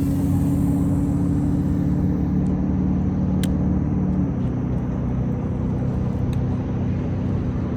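Boat motor running steadily with a low hum, dropping abruptly to a lower steady pitch a little past halfway.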